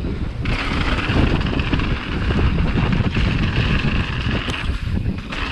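Wind rushing over the microphone of a camera on a mountain bike riding fast down a trail, with the tyres hissing and rumbling over rough ground; the tyre hiss briefly falls away near the end.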